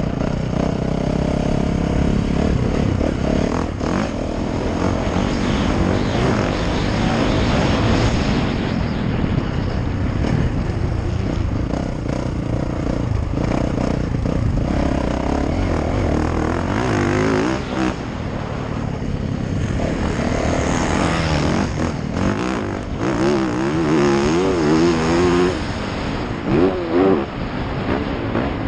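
Dirt bike engine revving up and down through the gears as it is ridden at speed around a motocross track, with wind noise over it. The engine note wavers quickly for a few seconds near the end.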